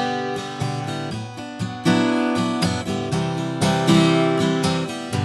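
Steel-string acoustic guitar strummed in a steady rhythm, moving from a G chord through a beginner's B minor (an A minor shape slid up two frets) to C.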